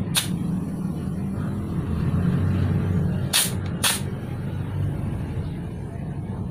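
Motorcycle rear tyre being inflated through an air-hose chuck on its valve, with a steady compressor hum. Twice, about three and a half seconds in, there is a short sharp hiss of air as the chuck is pressed on the valve.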